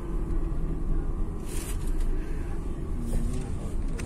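Steady low road and engine rumble heard inside the cabin of a moving Tata Altroz car. A short higher tone sounds briefly about three seconds in.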